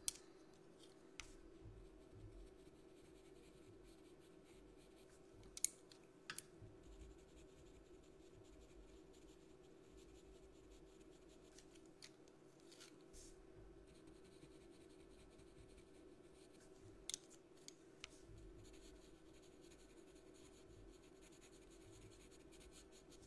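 Faint scratching of a pastel pencil shading on paper, with a few sharp clicks scattered through, over a steady low hum.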